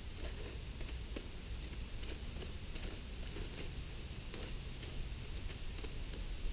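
A wooden stick raking and scraping through hot ash and charcoal in a campfire, with faint scattered ticks and crackles over a steady low rumble.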